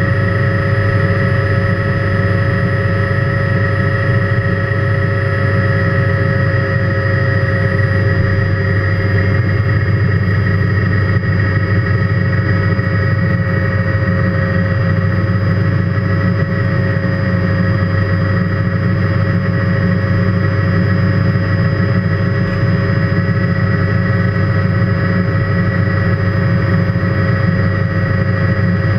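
Helicopter engine and rotor running steadily, heard from inside the cockpit: a steady whine over a low drone that keeps an even pitch and level throughout.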